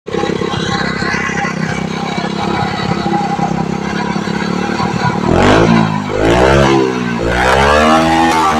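Honda Supra Fit single-cylinder four-stroke motorcycle engine, used to drive an air compressor, running at a steady fast idle. A little past five seconds in it is revved hard, rising and falling in pitch three times.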